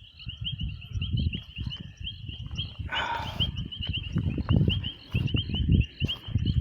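A steady night chorus of rapid, repeating high chirps, with irregular low thumps and rustles of handling close to the microphone, and a brief hiss about three seconds in.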